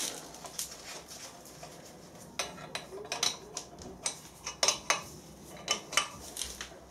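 Irregular sharp metallic clinks and taps as a hand tool knocks against a heavy metal vise while its bolts are tightened on a milling machine table.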